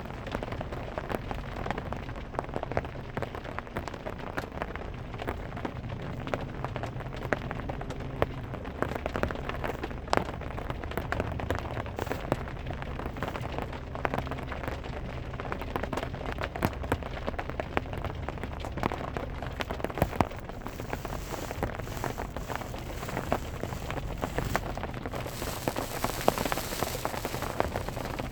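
Rain falling on a car's roof: a dense, steady patter of drops ticking on the sheet metal, with scattered louder single drops.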